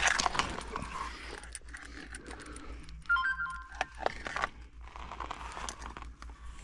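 A person crawling over loose gravel in a crawlspace: stones crunching and shifting under hands and knees, with clothing and foil insulation rustling and scattered small knocks. A brief squeak about three seconds in.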